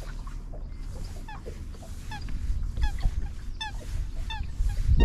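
Geese honking: a run of short, falling calls, about seven of them, growing louder from about two seconds in, over a low steady rumble.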